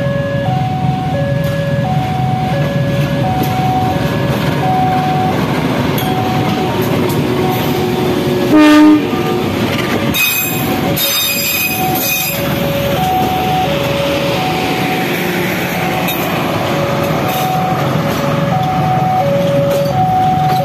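CC 201 diesel-electric locomotive hauling a commuter train passing close by with a steady engine and wheel rumble, sounding one short horn blast about nine seconds in, the loudest moment; a high screech comes from the running gear soon after. A level-crossing alarm's alternating two-note chime repeats about every half second.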